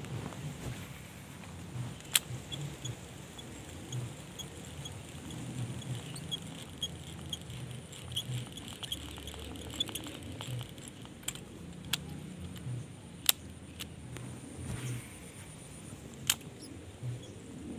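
Baitcasting rod and reel being handled: scattered sharp clicks and light rattles, the loudest about two, thirteen and sixteen seconds in, over a low uneven rumble of handling noise on the microphone.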